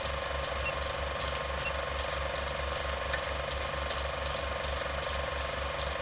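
Film projector sound effect: an even mechanical clatter at about four beats a second over a steady hum.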